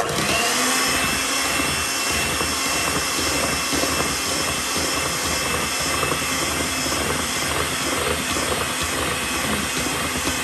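Electric hand mixer switched on and running steadily, its twin wire beaters churning flour into thick banana cake batter in a stainless steel bowl.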